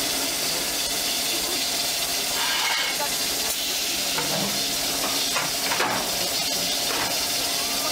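The Iron Horse steam locomotive hissing steam steadily as it stands in steam, with faint voices in the background.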